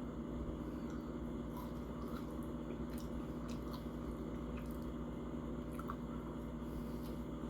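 A person chewing food close to the microphone: scattered soft, wet mouth clicks and smacks over a steady low hum.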